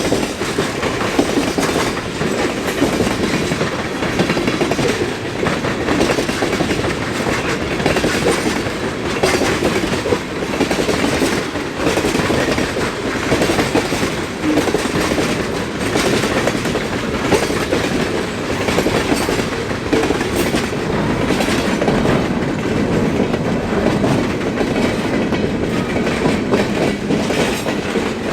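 A mixed freight train's cars rolling past in a steady rumble, with the wheels clicking irregularly over the rail joints.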